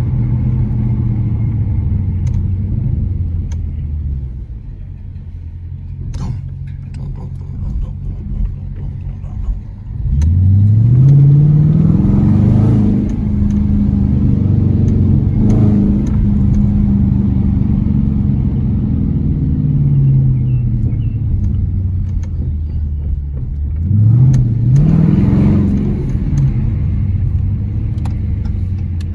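A 2020 Dodge Challenger R/T's 5.7-litre HEMI V8 with a mid-muffler delete, driving and revving under acceleration. It makes a long rising pull about ten seconds in that holds and then eases off, and a shorter rise and fall near the end.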